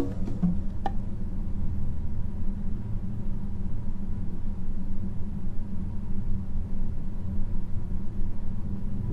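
A steady low rumble, like a vehicle engine heard from inside, right after the music cuts off.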